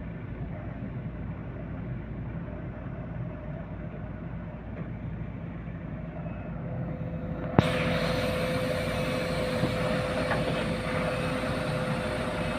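Heavy diesel engine running steadily at low revs. A sharp click about seven and a half seconds in, after which the sound is brighter, with a steady whine on top of the engine.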